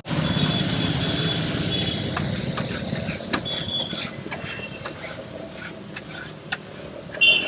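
Street traffic noise with a motor vehicle engine running close by, strongest in the first few seconds. Scattered sharp clicks and a few short high tones sound over it.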